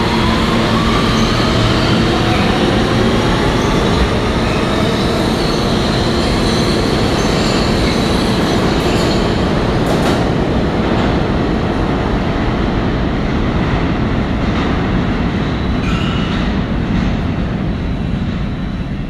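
R160 subway train with Siemens propulsion pulling out of the station: the motors' rising whine of stepped tones as it accelerates over the first few seconds, then the steady rumble of wheels on rail, slowly fading as the train leaves.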